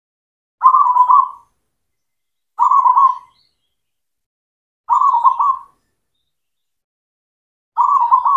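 Zebra dove (perkutut) cooing: four short trilled coos, each under a second long and two to three seconds apart, the last cut off at the end.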